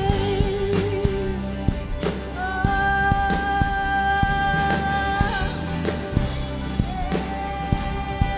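Live worship song: a band with a drum kit keeps playing while singers hold long notes. One held note fades out about a second and a half in, and another is held from about two and a half to five seconds in.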